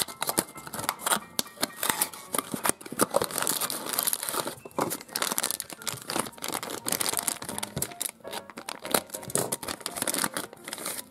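A cardboard box being opened, then a crinkly plastic packet crumpled and torn open by hand: a dense, irregular run of crinkles and crackles.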